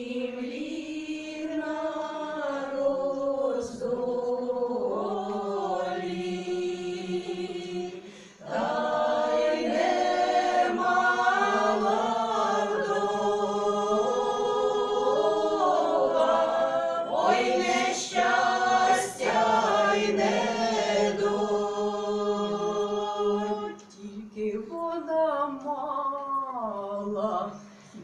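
Women's folk choir singing a Ukrainian folk song together, the long sung phrases pausing briefly for breath about eight seconds in and again near the end.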